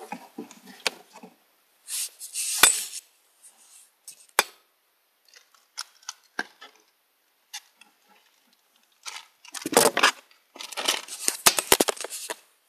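Rustling, crinkling and clicking as small objects are handled and moved about close to the microphone. The sounds come in scattered bursts: a loud one about two seconds in and a busy run with sharp clicks near the end.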